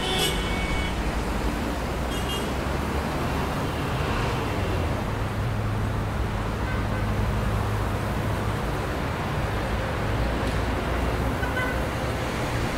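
Steady city traffic noise with a low hum underneath.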